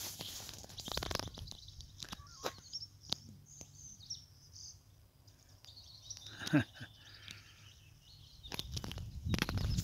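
Outdoor ambience: faint bird chirps and scattered light clicks, with one short, loud falling cry about six and a half seconds in. Near the end, wind picks up and rumbles on the microphone.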